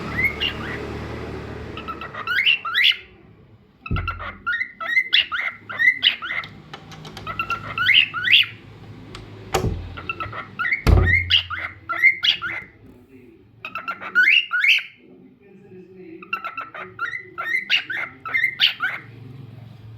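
Cockatiel singing, a run of short chirpy whistled notes that sweep upward, delivered in repeated bursts with brief pauses between them. A few low thumps come in around four seconds, near ten seconds and at eleven seconds.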